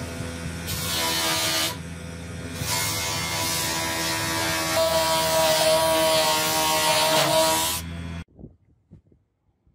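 Bench grinder running with a steady motor hum, and a hiss each time a steel karambit blade is pressed against the spinning wheel to grind and sharpen it: briefly about a second in, then for most of the rest. The sound cuts off suddenly about eight seconds in, leaving only a few faint clicks.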